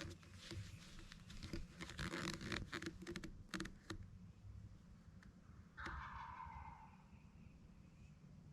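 Close scraping and rustling of movement for the first few seconds. About six seconds in, a wild turkey gobbler gobbles once at a distance: a quick rattling call that fades out within a second or so.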